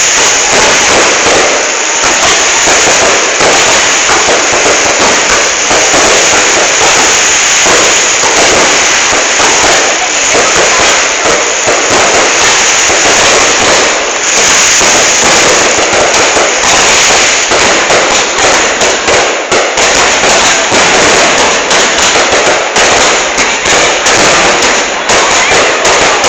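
Aerial fireworks display going off in a dense, unbroken barrage of bangs and crackles, very loud throughout.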